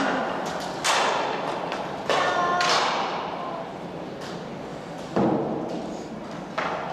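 About five sharp knocks echoing in a large hall: the puck and sticks striking the rink boards and each other during inline hockey play.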